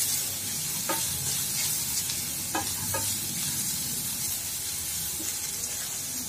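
Grated carrot, green peas and onion sizzling gently in oil in a pan on low flame while a spatula stirs them, scraping through the vegetables and knocking lightly against the pan a few times.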